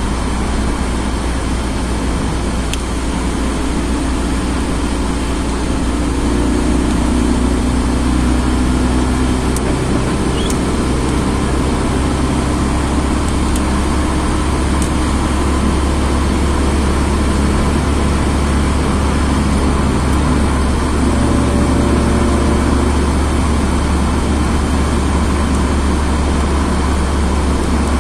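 Steady in-cabin road noise from a moving car: a low rumble of engine and tyres with tyre hiss on the wet road surface, and an engine hum that shifts in pitch now and then.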